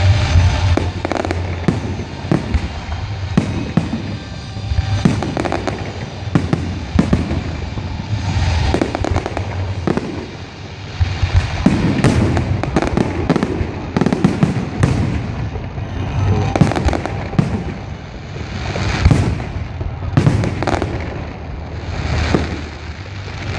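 Fireworks display: aerial shells bursting one after another in a dense barrage, many loud bangs in quick succession over a continuous rumble, swelling to heavier volleys several times.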